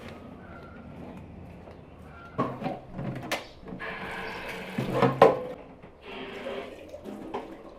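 Knocking and clattering handling noises, with a sharp knock a little past three seconds in and a louder one about five seconds in.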